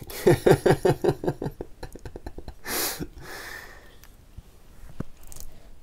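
A man chuckling, a quick run of short laughs over the first second and a half, then a sharp breath about three seconds in.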